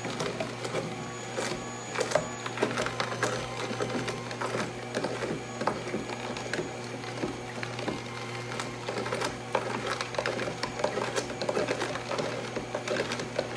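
ROIOS slow juicer running on its hard setting, the motor humming steadily while carrots pushed down the chute are crushed by the auger with constant irregular crunching and cracking.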